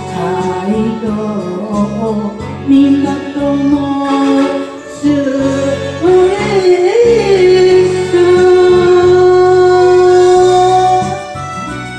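A song: a singing voice over guitar-led backing music, the voice moving through a melody and then holding one long note from a little past the middle until near the end.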